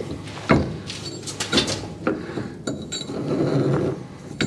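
Scattered metallic clinks and knocks of hand tools and hardware against the car's rear suspension, a few separate strikes spread over a few seconds.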